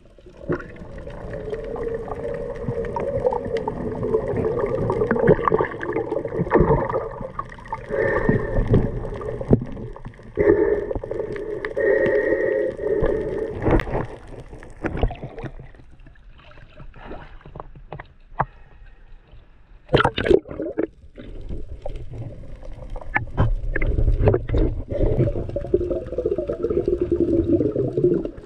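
Muffled underwater sound picked up by a camera during a spearfishing dive: water gurgling and rushing against the housing, with a wavering hum that comes and goes and scattered knocks and clicks as the speared fish and speargun are handled.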